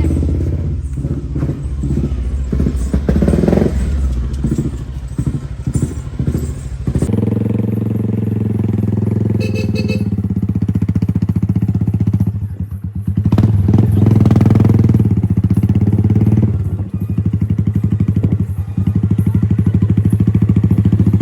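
Royal Enfield Bullet motorcycle's single-cylinder engine running steadily while being ridden, with an abrupt change in its sound about seven seconds in.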